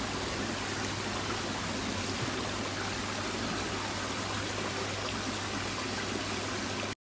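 Koi pond water running steadily, a constant stream-like rush with a steady low hum beneath; it cuts off suddenly at the very end.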